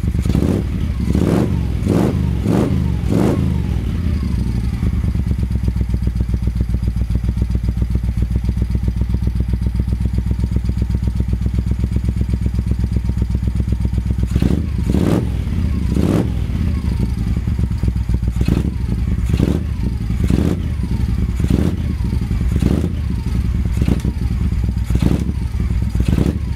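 1974 Moto Guzzi Eldorado 850 air-cooled V-twin idling through stainless Mistral slash-cut slip-on exhausts, with short throttle blips: four quick ones in the first few seconds, then a run of them about once a second from about halfway.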